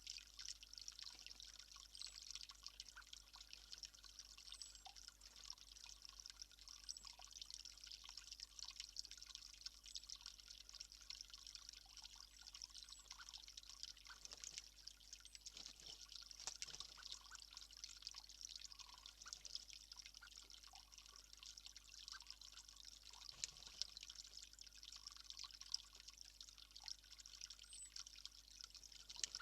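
Faint, steady trickle of running water, with a few faint, short, high chirps.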